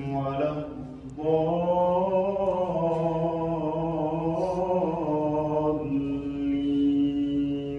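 A man chanting an Islamic prayer in long, drawn-out held notes, with a short break about a second in.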